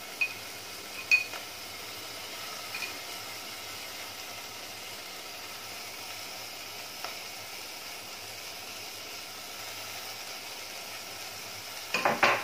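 Onion, tomato and potato masala sizzling steadily in hot oil in a pot, with soaked dried shrimp freshly added on top. A couple of sharp clicks about a second in, and a short clatter near the end.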